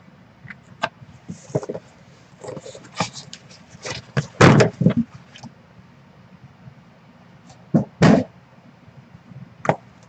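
Cardboard shipping box being opened and its shrink-wrapped card boxes handled: irregular scrapes, rustles and knocks, with louder thumps about four and a half seconds in and again near eight seconds.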